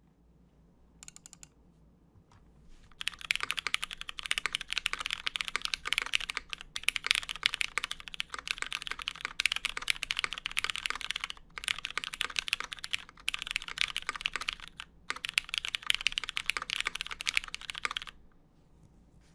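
Lin Dolinger RE mechanical keyboard with lubed Cherry MX Brown switches in a polycarbonate plate and GMK keycaps, typed on fast: a few keystrokes about a second in, then dense continuous typing with a few short pauses, stopping near the end. A faint steady buzz from the microphone sits underneath.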